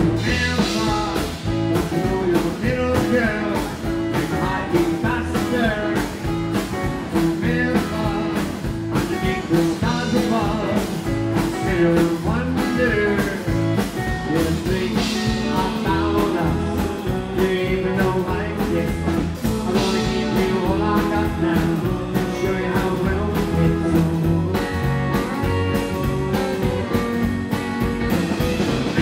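Rockabilly band playing live: Telecaster-style electric guitar, upright double bass and drum kit, with a steady beat.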